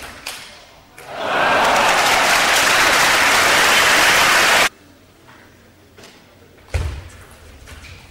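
Crowd in a hall applauding and cheering after a point in a table tennis match, swelling about a second in, then cut off abruptly about two thirds of the way through. Afterwards only quieter hall noise, with a single thud shortly before the end.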